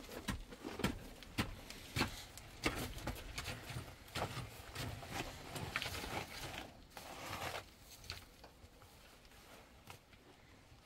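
Irregular knocks and clatter with some rustling, dying down about eight seconds in.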